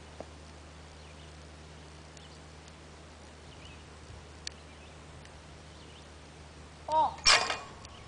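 Low steady background hum, then near the end a short shout followed by a single loud, sharp shotgun shot that rings off.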